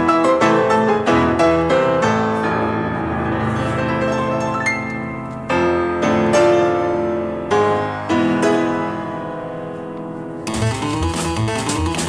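Pianos playing bright struck chords and quick figures, the chords ringing and dying away between fresh attacks. About ten and a half seconds in, a quicker, rhythmic passage with a steady bass pulse begins.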